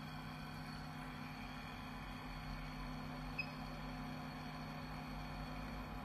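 Steady hum of a running continuous inkjet printer, its pump and fan going as it starts its shutdown sequence, with one brief tick a little past the middle.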